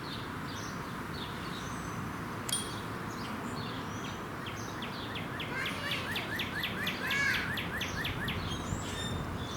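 Small birds chirping over a steady low background rumble, with one bird giving a quick run of repeated sweeping notes for a few seconds in the second half.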